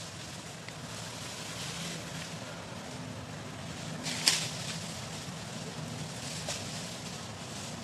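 Outdoor background noise with a faint low hum, broken by one sharp crack about four seconds in and a few smaller clicks.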